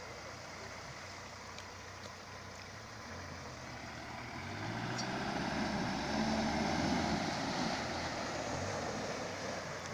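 SUV engine running under load as the vehicle wades through shallow river water, growing louder from about three seconds in, loudest around six to seven seconds, then easing off.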